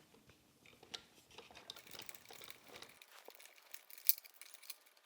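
Faint crinkling and rustling of packaging being pulled off the e-bike's wheel, with scattered small clicks and one sharper click about four seconds in.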